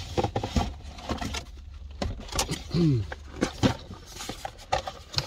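Cardboard box and paper packaging being handled and pulled apart: irregular rustles, crinkles and light knocks over a steady low rumble, with a short falling hum from a man's voice about halfway.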